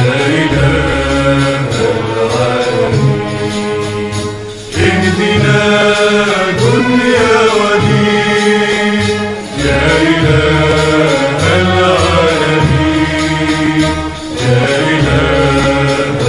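Islamic nasheed music: a wordless intro of layered chanting voices over a deep bass pulse, moving in phrases of about five seconds that briefly dip between them.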